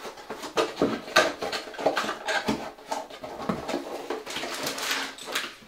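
Lego set packaging being handled on a table: the cardboard box and paper instruction booklet rustling, with a steady run of light scrapes and knocks.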